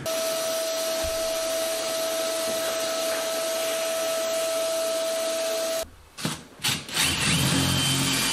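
Vacuum cleaner running on its hose attachment, a steady rushing hiss with a steady whine, that cuts off suddenly about six seconds in. After a couple of short knocks, a cordless drill-driver starts spinning near the end, running a bit that tapers screw holes in the plywood subfloor.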